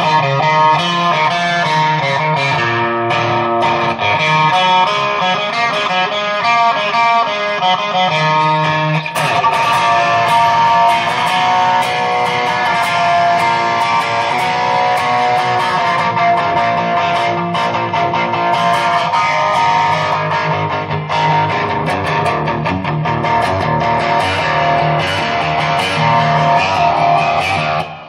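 Electric guitar playing continuously: a 2005 Squier Telecaster Standard rewired to Fender Esquire wiring with an Eldred mod. It runs through a Peavey Vypyr amp on its Fender Twin model, with a little reverb.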